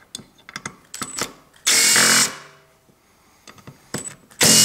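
Makita cordless impact driver run in two short bursts, each about half a second long, backing out small screws. Light clicks and knocks of the tool and screws come between the bursts.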